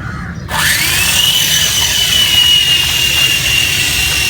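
Small electric motor of a homemade soda-can toy helicopter starting up about half a second in, its high whine rising quickly in pitch and then holding steady at full speed.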